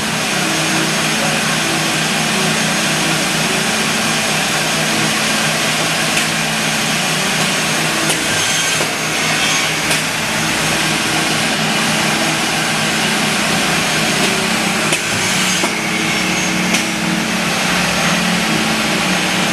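RazorGage RazorOptimal automated optimizing chop saw running steadily, cutting 3/4 alder lumber into parts, with a few sharp clacks and louder stretches of sawing about halfway through and again near the end.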